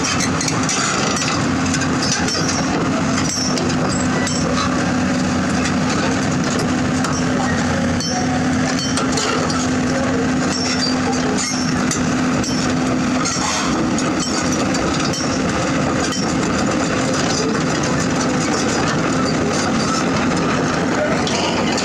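CAT 320D hydraulic excavator's diesel engine running steadily with a constant hum, and its steel tracks clanking as it drives down a truck's loading ramp onto the ground.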